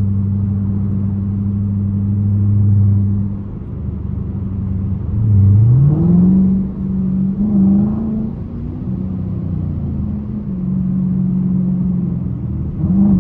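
Dodge Challenger R/T's 5.7-litre Hemi V8, heard from inside the cabin at highway speed. It drones steadily at first, then its revs climb quickly about five seconds in and surge again around the middle and near the end as it accelerates through traffic, over steady road noise.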